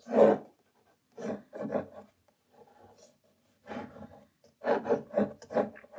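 Pencil sketching on watercolour paper: short scratching strokes in quick groups, the loudest right at the start and a run of several close together near the end.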